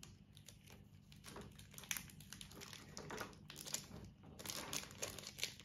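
Foil wrapper of a Pokémon trading-card booster pack crinkling in short, irregular crackles as hands tug at it, trying to tear it open.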